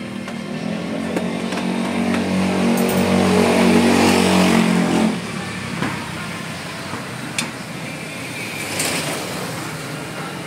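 A motor vehicle's engine running close by, growing louder over the first few seconds and stopping suddenly about five seconds in. After it, a few light clicks as the plastic mirror housing is handled.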